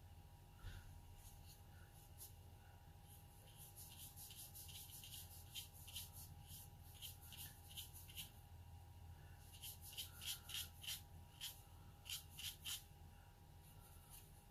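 Faint quick strokes of a round watercolor brush flicking across watercolor paper, one run of short strokes midway and another near the end.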